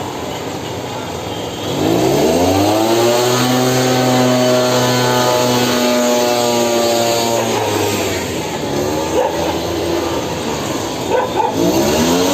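Small engine of a motorized disinfectant sprayer revving up and holding a steady pitch, then dropping. It revs up briefly again twice, once about two-thirds of the way through and once near the end.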